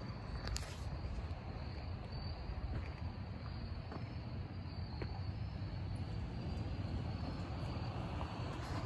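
Wind rumbling on the microphone, with a faint, high, steady insect trill in the background.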